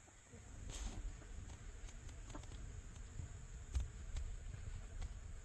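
Quiet outdoor ambience: a steady high-pitched insect drone over a low rumble on the phone's microphone, with a few faint rustles.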